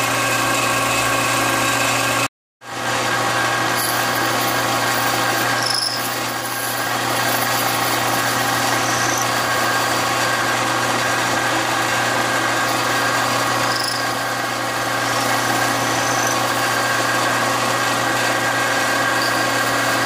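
Metal lathe running steadily with a hum, its cutting tool turning a replacement motor bushing. A few faint, short high squeaks are heard. The sound cuts out for a moment about two and a half seconds in.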